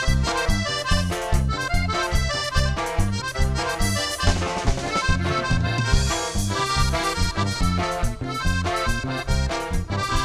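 Norteño band playing an instrumental passage, with accordion on top and a steady bouncing bass beat underneath.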